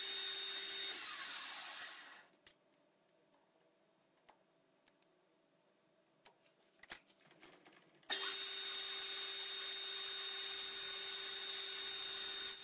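Metal lathe running with a steady whine, then spinning down and stopping about two seconds in. A few light clicks and taps follow in the quiet, and the lathe starts up again abruptly about eight seconds in and runs steadily.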